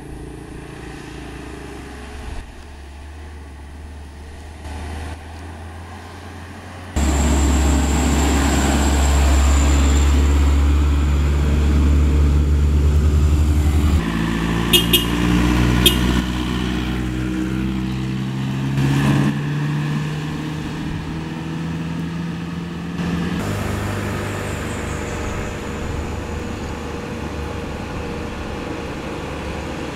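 Engines of trucks and a small car labouring up a steep hill, a steady low engine drone that changes abruptly several times where clips are cut together, loudest for a stretch near the start. Two sharp clicks come about a second apart midway through.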